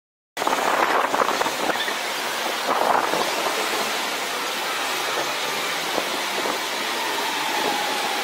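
Shanghai Maglev train approaching on its elevated guideway: a steady rushing noise that cuts in abruptly about half a second in, with a faint falling whine coming in near the end.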